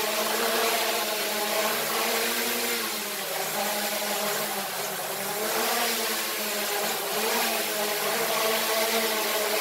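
Small toy quadcopter drone's motors and propellers whirring, the pitch rising and falling every second or two as the throttle changes while it lifts and settles low over a bed.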